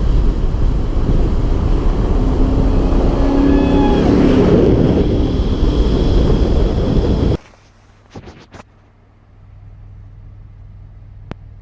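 Snowmobile engine running hard under wind buffeting on the microphone, a loud, rough rumble. About seven seconds in it cuts off abruptly, leaving a quiet low hum with a few faint clicks.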